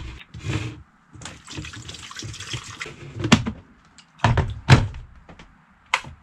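Water poured into a white plastic electric kettle with a steady hiss, then a few sharp knocks and clunks as the kettle is handled and set on its base, and a short click near the end as it is switched on.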